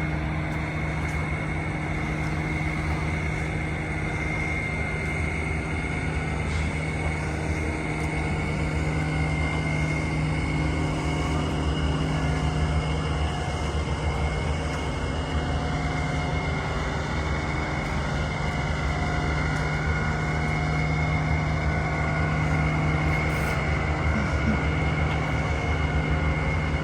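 Steady engine and road drone of a vehicle, with a constant low hum and a thin, high steady whine that never changes.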